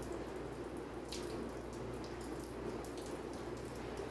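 Steady background hiss, like a distantly running tap or room noise, with a faint click about a second in.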